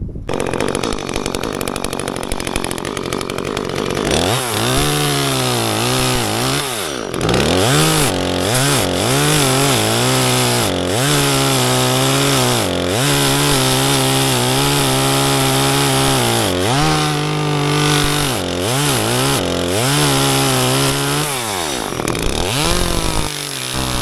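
Chainsaw engine running, at first with a steadier, rougher noise, then from about four seconds in revving up and dropping back over and over, every second or two, as it is throttled through cuts.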